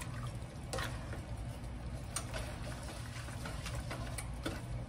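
A spatula stirring ground beef in thick gravy in a pot: wet sloshing and squelching, with a few sharp scrapes of the spatula against the pan. A steady low hum runs underneath.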